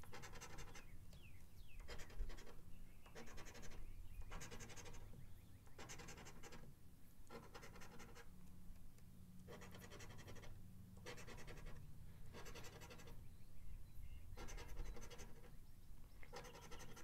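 A coin scratching the latex coating off a paper lottery scratch-off ticket in short strokes, about one a second, each stroke rubbing off a number spot.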